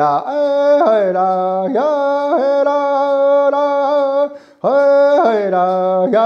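A solo voice singing an Indigenous honor song unaccompanied, holding long notes with sliding pitch changes between them. There is a short breath break about four and a half seconds in.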